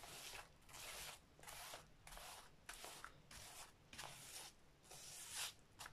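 Faint, repeated strokes of a wide paintbrush swept across wet silk fibres in mesh netting, brushing fabric medium through the layers, about nine short swishes, roughly one every half second to second.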